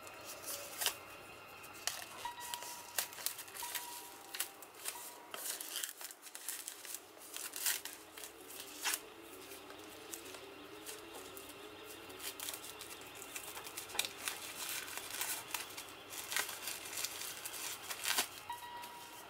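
Plastic shrink-wrap crinkling and crackling as it is peeled and torn off a Blu-ray steelbook case, in quick irregular crackles.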